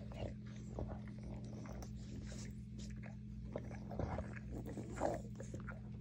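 Dogs at play: an adult Shar-Pei licking and mouthing a puppy, with irregular wet licking, snuffling and mouthing sounds, a little stronger about four and five seconds in. A steady low hum runs underneath.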